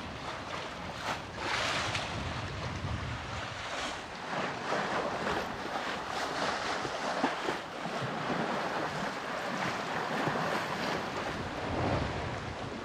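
Sea water rushing and splashing along the hull of an Island Packet 32 sailboat under sail, in uneven surges, with wind buffeting the microphone.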